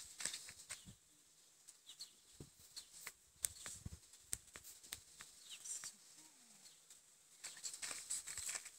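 Faint scattered clicks with light crunching of footsteps on gravel, which thicken near the end, and a couple of short, high bird chirps.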